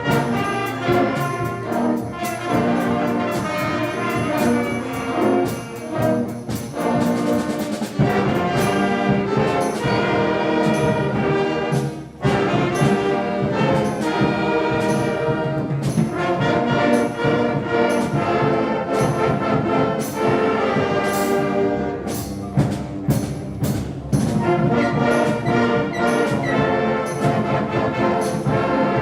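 A school concert band playing a piece, with brass (trumpets and trombones) carrying the tune over regular drum hits. There is a momentary break about twelve seconds in.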